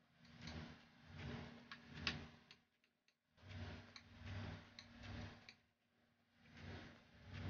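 Soft rhythmic swishing strokes, a little more than one a second, of a painting tool worked across a canvas, with a few small clicks and a faint steady hum; the strokes pause briefly near the middle.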